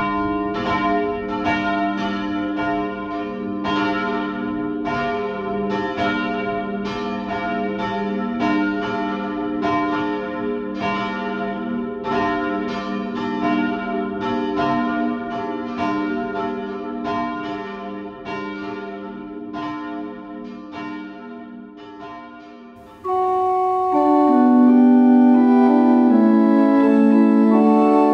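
Church bells ringing in a steady stream of overlapping strikes that slowly die away. About 23 seconds in, an organ comes in loudly, playing the introduction to a hymn.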